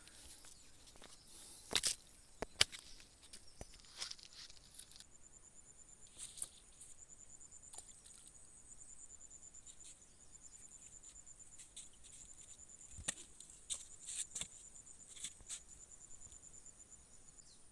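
Insects trilling, a high steady pulsed buzz that sets in about five seconds in and stops near the end. Scattered sharp clicks and taps sound throughout, loudest around two seconds in and again around thirteen seconds.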